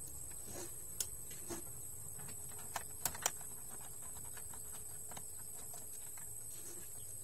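A few sharp small clicks and taps from a screwdriver working loose a tight screw on the carriage motor of an Epson L360 inkjet printer, the loudest cluster about three seconds in.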